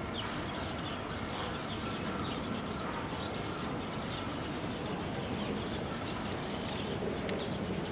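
Small birds chirping in short, scattered calls over a steady low background rumble.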